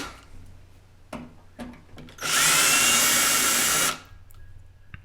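A power drill used as a screwdriver backs out a light switch's screw in one run of about a second and a half. Its whine rises as the motor spins up, holds steady, then stops. Two faint clicks come before it.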